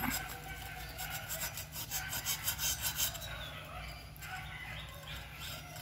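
Metal tool scraping and rasping burnt carbon off the steel baffle plate of a two-stroke three-wheeler silencer, in quick repeated strokes.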